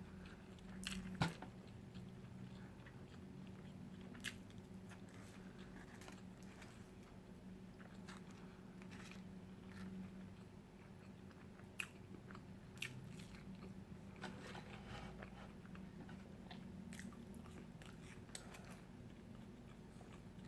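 A person chewing and biting food close to the microphone, with soft mouth clicks and a few sharper clicks scattered through, over a steady low hum.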